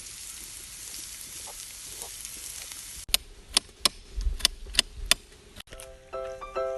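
Food sizzling in a pan with a steady hiss for about three seconds, then a cut to a run of about eight sharp knocks over the next two seconds. Piano music starts near the end.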